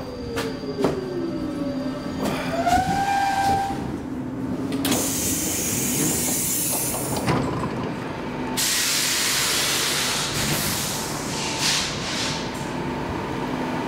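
Stockholm metro C15 train coming to a stop and standing at the platform: a falling motor whine in the first second or so with a couple of knocks, then two long bursts of compressed-air hiss, the second about four seconds long, over a steady hum.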